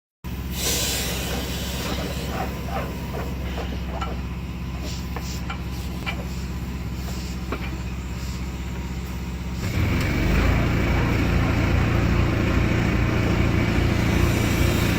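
Dryer vent cleaning equipment running: a steady motor hum with scattered rattling clicks, then about ten seconds in a louder motor with a high whine starts up over it.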